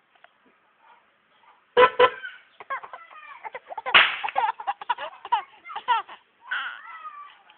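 A horn honked loudly, a quick double honk about two seconds in and another honk about four seconds in, with bursts of laughter in between and after.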